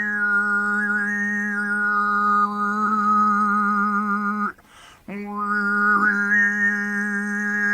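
Mongolian khoomii throat singing: one held drone with a whistling overtone melody moving above it. The voice breaks off for a quick breath about four and a half seconds in, then the overtone climbs back up.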